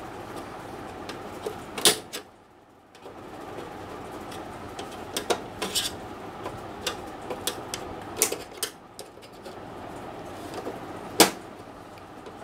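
Scattered clicks and knocks of the plastic and metal parts of an HP LaserJet P1020 Plus printer's casing being pressed and pried with fingers and a screwdriver to release a part from its catches, over a steady low background noise. The loudest clicks come about two seconds in and near the end.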